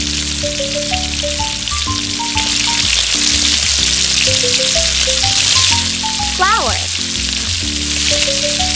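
Butter sizzling and frying as it melts in a small stainless steel pot, over background music with a light, plucked melody.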